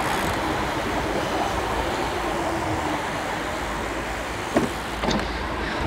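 Steady street traffic noise heard while riding along a city road, with two brief knocks about half a second apart near the end.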